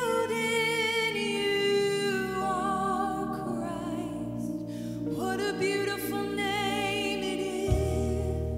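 A woman singing a slow worship song live, holding long wavering notes in two phrases over instrumental accompaniment; a deep bass note comes in near the end.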